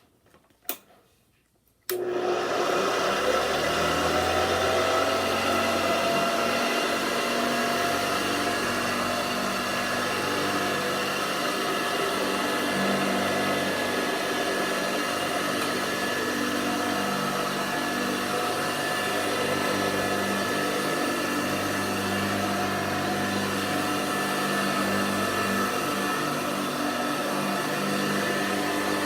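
Hoover Convertible Model 35 upright vacuum cleaner switched on about two seconds in, its motor rising in pitch as it spins up and then running steadily with a whine.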